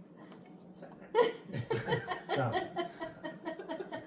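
People laughing: a quiet start, then a burst of laughter about a second in that carries on in quick repeated pulses almost to the end, with a short spoken "Stop." in the middle of it.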